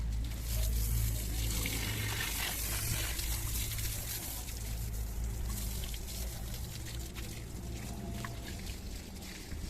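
Water spraying and splashing, likely from washing a JCB backhoe loader, over a steady low hum of a running motor that fades out near the end.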